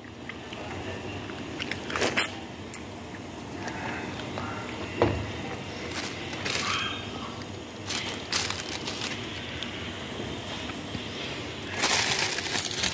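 A few scattered knocks and clatter as a steel pot of pineapple peels is handled on a gas stove, then a plastic bag rustling near the end.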